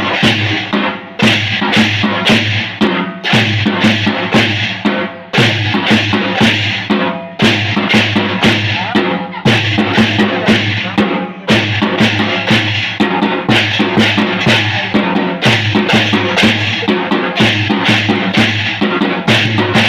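Devotional drum-and-cymbal band playing a fast, steady beat: hand-held and floor drums with large brass hand cymbals clashing on the strokes. In the first half the beat breaks off briefly about every two seconds.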